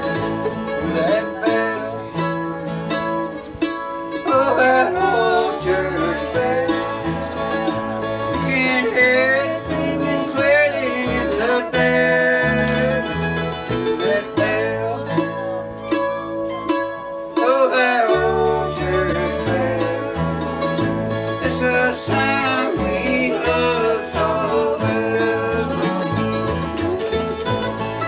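Acoustic bluegrass band playing a gospel tune, with banjo and guitar picking.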